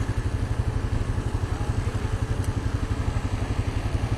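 Vehicle engine idling with a fast, even low throb. It is left running because in the −37 °C cold it would not restart once shut off.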